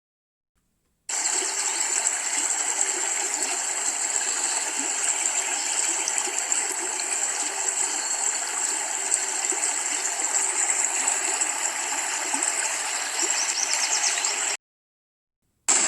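Steady rushing noise of running water, starting abruptly about a second in and cutting off abruptly near the end.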